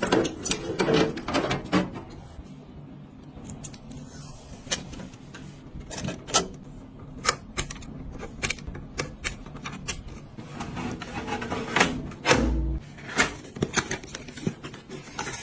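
Irregular sharp clicks and clacks of hard parts being handled and fitted during a PC build, with a faint low hum underneath.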